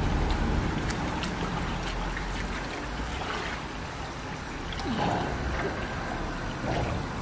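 Shallow stream water splashing and trickling as a person wades through it and feels about in the streambed with their hands, with scattered small clicks and over a steady low rumble.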